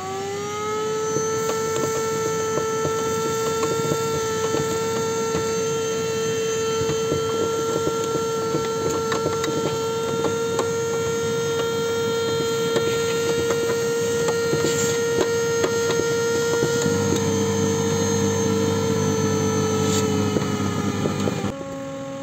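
Vacuum cleaner motor spinning up to a steady high whine, with small crackles of dirt and grit sucked into the hose from around the fuel pump. Near the end its pitch dips and it gets quieter.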